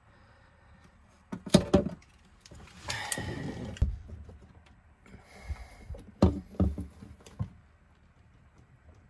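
Handling noise from fitting a braided plastic water hose, a hose clamp and a hose fitting: a few sharp knocks and clicks about one and a half to two seconds in, a short stretch of scraping and rustling about three seconds in, then another cluster of knocks between six and seven and a half seconds.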